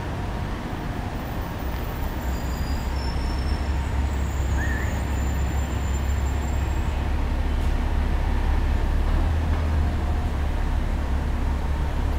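Steady low rumble of city background noise, growing a little louder about four seconds in, with one short high chirp near the middle.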